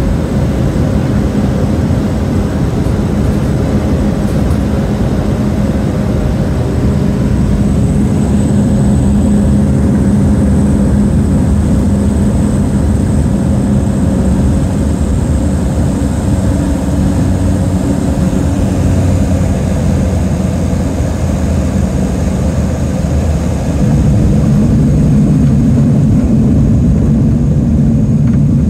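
Cessna Caravan's single Pratt & Whitney PT6A turboprop running steadily: a low propeller drone with a thin, high turbine whine over it. The drone grows louder a few seconds before the end.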